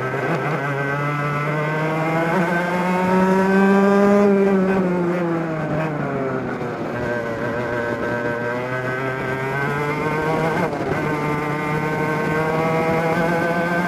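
A racing kart's two-stroke engine at racing revs. The pitch climbs for about four seconds, drops away for about three seconds as the kart slows for a corner, then climbs again, with a short dip about ten seconds in, before it holds high.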